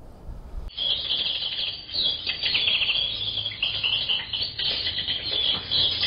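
Wind rumbling on the microphone, then, under a second in, a dense chorus of small songbirds chirping and twittering rapidly.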